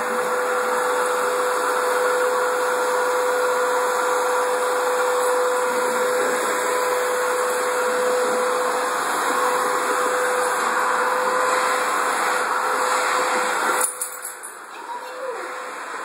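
Canister vacuum cleaner running steadily with a constant whine. About 14 seconds in there is a click and the sound drops sharply, becoming much quieter.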